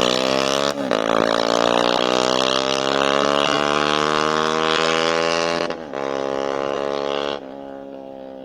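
Bajaj Pulsar RS200's single-cylinder engine through an aftermarket Akrapovic Large exhaust, accelerating hard with rising revs. The note breaks briefly about a second in and again near six seconds, as on upshifts, then drops sharply near the end and fades.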